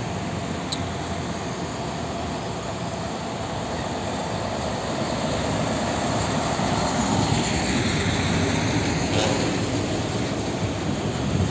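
A heavy diesel cargo truck driving past close by: engine and tyre noise build up and are loudest as it goes by, over steady road traffic. A short sharp sound comes near the end, as a second truck approaches.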